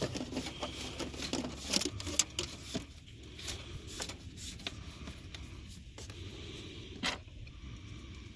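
Small clicks and handling noises from the new diesel-heater fuel line as it is cut to length and worked into place. The clicks are densest in the first few seconds, with one sharper click near the end, over a low steady hum.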